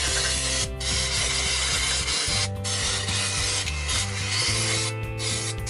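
Aerosol parts-cleaner spray hissing in long bursts with short breaks about every two seconds, as transmission parts are sprayed clean.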